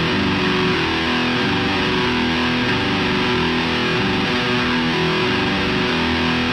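Black metal song intro: heavily distorted electric guitar strumming a steady, dense wall of held chords, without drums.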